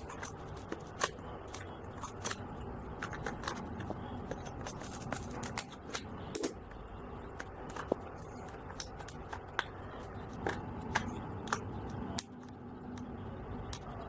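Hands handling a hard plastic clamshell package and picking at its sticker seal: scattered sharp clicks and crackles of the plastic, irregularly spaced, over a steady background hiss.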